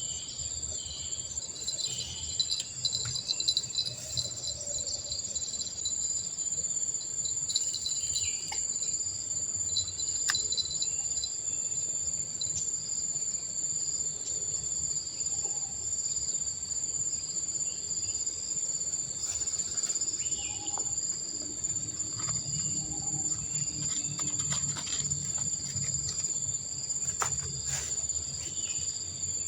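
Steady high-pitched insect chorus, two unbroken shrill tones droning together, with a few faint clicks here and there.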